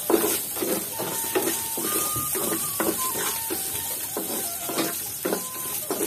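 A spatula scraping and stirring radish seed pods in a wok, about three strokes a second, over a faint steady sizzle of frying oil.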